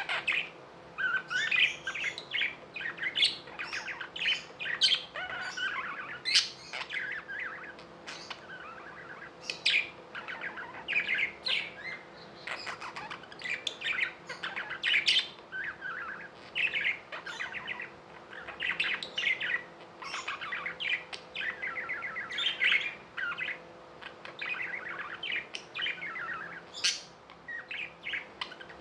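Budgerigars chirping and warbling without pause, a rapid jumble of short chirps, with a faint steady hum underneath.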